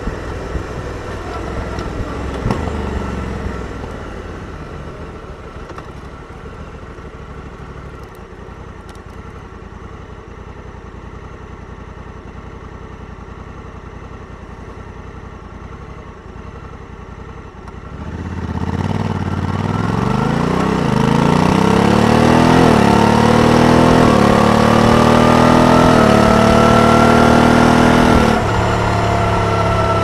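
Honda Africa Twin 1100's parallel-twin engine. It runs quietly at low revs for a long stretch, then accelerates, its note climbing in steps through about four quick upshifts of the dual-clutch automatic transmission. Near the end the throttle eases and it settles to a steadier drone.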